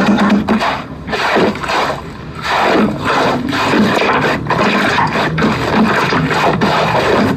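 Slime being handled and squished, with wet squelching and many quick clicks and pops.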